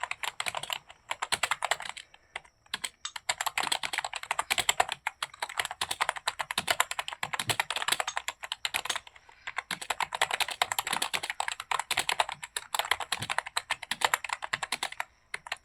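Fast continuous typing on a computer keyboard: a dense run of key clicks broken by a few brief pauses, stopping near the end.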